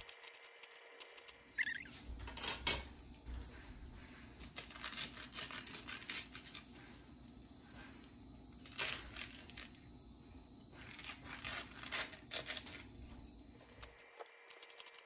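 Wet scraping and tearing of pineapple flesh being scraped out of a halved pineapple shell with a plastic scraper, in four or five short bouts.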